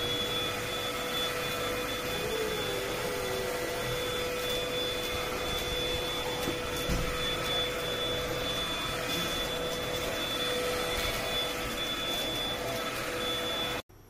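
SwissThomas X4896R cordless stick vacuum with a brushless motor, running steadily at full speed: a steady high whine over the rush of suction air. The sound cuts off abruptly near the end.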